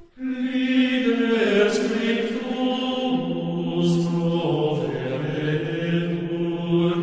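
Choral chant: voices start singing about a quarter second in and hold slow, long notes that step gently in pitch, with a few soft hissing consonants.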